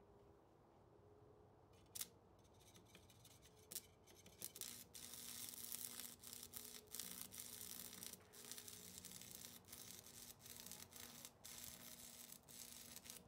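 Electric arc welding with a small, cheap hobby welder. A couple of sharp clicks come first, then from about four seconds in the arc crackles and sizzles steadily, with brief breaks where the arc stops and restarts.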